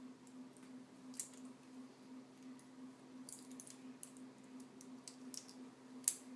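Small plastic Lego pieces being handled and pressed together: scattered light clicks, the sharpest about a second in and near the end.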